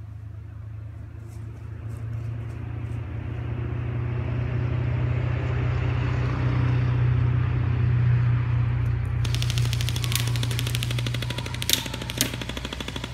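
A deep rumble swells and then slowly fades. About nine seconds in, a rapid rattle like machine-gun fire starts suddenly, with two louder cracks near the end.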